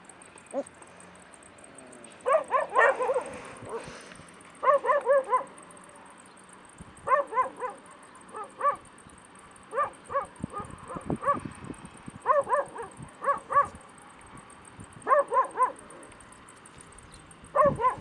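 Puppy yelping in quick runs of three or four short, high notes, a run every two to three seconds. A few soft low knocks come in the middle.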